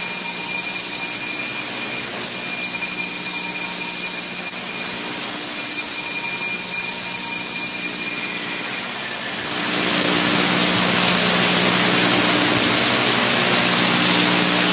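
Altar bells rung at the elevation of the chalice: three long peals of bright, high-pitched ringing, about three seconds apart. After the third peal fades there is a steady hiss with a low hum.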